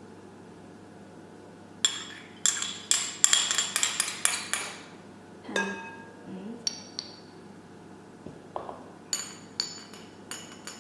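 A kitchen utensil clinking against a bowl: a quick run of ringing taps about two seconds in, a few single clinks, then another short run near the end.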